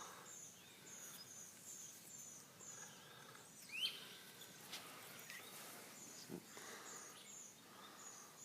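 Faint birdsong: a steady run of short, high, evenly spaced chirps, with a louder rising call about four seconds in, over quiet rural background noise.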